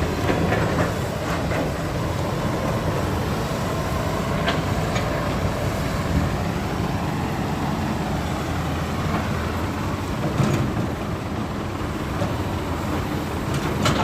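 Heavy diesel earthmoving machinery running steadily, with a few sharp metallic knocks from the working equipment, about 4 s, 10 s and 14 s in.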